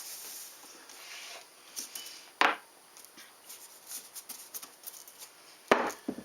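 Small handling sounds on a work bench: light clicks and taps of tools and parts being handled, with a sharp knock about two and a half seconds in and a louder one near the end.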